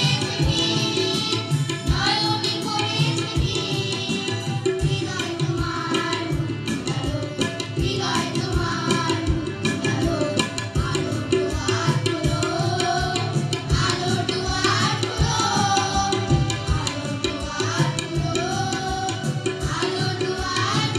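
Children's choir singing together over a steady tabla beat.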